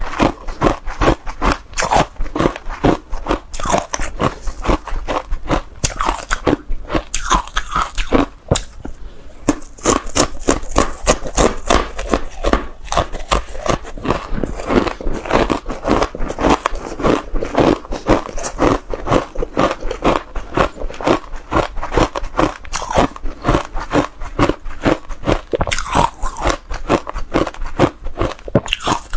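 Close-miked crunching and chewing of ice dusted with matcha powder: a dense, steady run of bites and cracks, with a short lull about nine seconds in.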